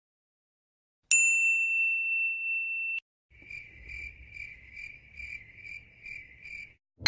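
A sudden bright electronic ding whose clear tone is held and then cut off sharply, followed by a chirping cricket effect with short, evenly spaced chirps at about two a second.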